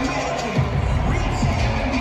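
Music playing over an arena's sound system, with the noise of a large crowd underneath, recorded on a phone in the stands.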